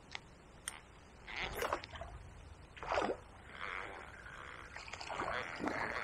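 A small hooked chub splashing at the river surface as it is struck and played on float tackle: two light clicks near the start, louder splashes about one and a half and three seconds in, then softer, continued splashing.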